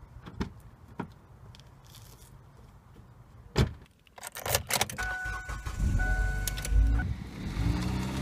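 A Kia Spectra sedan being got into and started. A car door shuts with a knock about halfway through, and the key clicks into the ignition. A steady two-tone warning chime sounds while the engine cranks and catches with a low rumble. Near the end the engine's pitch rises as the car pulls away.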